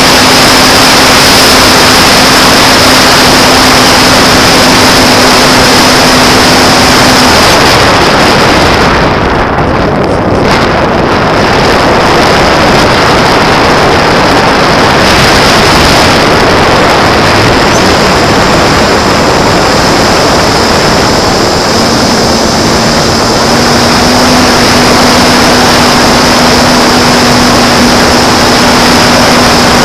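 Loud wind rush over the onboard camera of a J-Power Sky Surfer electric RC glider in flight. A steady electric-motor-and-propeller hum stops about seven seconds in and comes back about twenty-two seconds in, leaving the plane gliding on wind noise alone in between.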